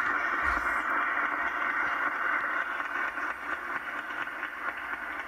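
Audience applauding, heard from an old videotape played back through a computer's small speakers, which makes it thin and hissy; the applause eases off a little in the second half.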